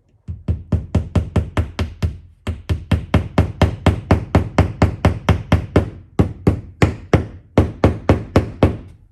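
A mallet repeatedly tapping wall anchors into drilled holes in a wall, driving them in until flush: quick sharp strikes, about four a second, with short breaks about two seconds in and again around six and seven and a half seconds in.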